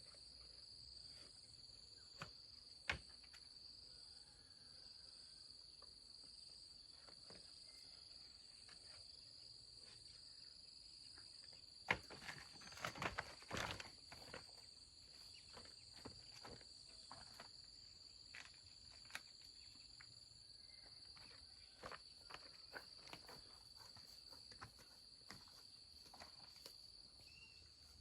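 Faint steady high-pitched drone of insects in the vegetation. Scattered sharp clicks and crackles run over it, densest about twelve to fourteen seconds in.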